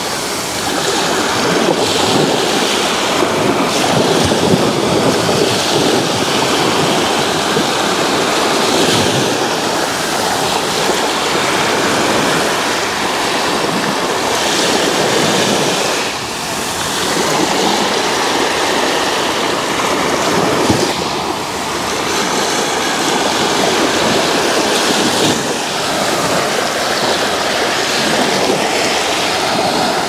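Small sea waves breaking and washing up over sand at the shoreline, a continuous surf noise that swells and eases as each wave runs in.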